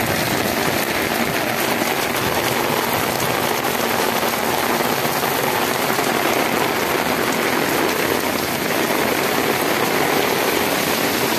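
Heavy rain pouring down on a flooded dirt road and a concrete slab: a dense, steady hiss.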